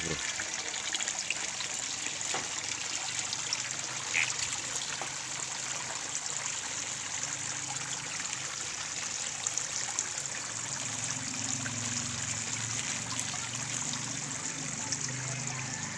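Thin water jets from a perforated PVC pipe splashing steadily into a tarpaulin fish pond, a continuous trickling hiss. A low hum joins in about eleven seconds in.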